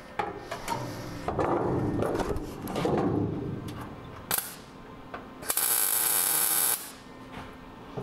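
Shuffling handling noise, then a short sharp crack about four seconds in and a steady hissing burst of about a second from a MIG welder's arc: a quick tack weld joining a sheet-metal floor pan patch panel to the frame.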